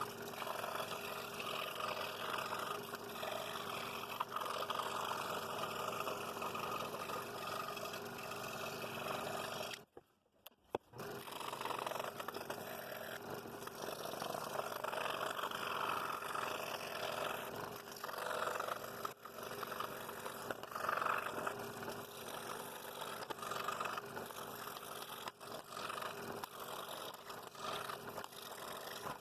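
Scroll saw running and cutting wood, a steady motor hum with the blade chattering through the board. It cuts out for about a second about ten seconds in, then carries on.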